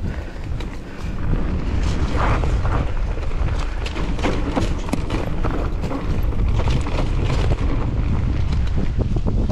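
Wind rumbling on the microphone while a mountain bike rattles over rough trail, with frequent sharp knocks and clatters. It gets a little louder about a second in.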